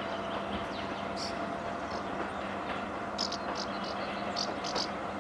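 DR1A diesel multiple unit running steadily as it draws away, a continuous diesel drone with a steady hum. Short high chirps come through over it, several in the second half.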